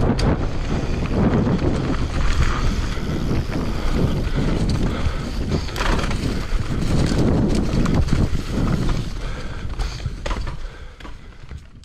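Mountain bike descending a rough dirt trail at speed: tyre roar over dirt and rock, frame and drivetrain rattling, and a few sharp knocks, with wind on the microphone. The noise eases from about ten and a half seconds in.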